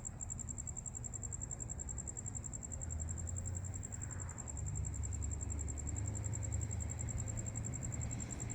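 Insects trilling steadily with a high-pitched, even pulse, over a low rumble that grows louder about halfway through.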